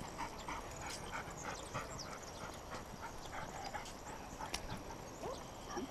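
A working drug-detection dog panting quickly and evenly, with footsteps on concrete.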